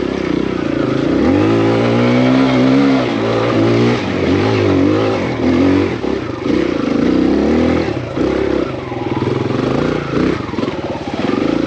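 Kawasaki KLX140RF dirt bike's single-cylinder four-stroke engine revving hard under load up a dirt hill climb. Its pitch rises and falls again and again as the throttle is worked.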